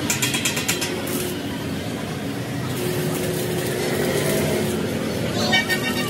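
Stick (arc) welding on a steel tank lid: the arc's steady crackling sizzle over a low hum, with a run of quick clicks in the first second.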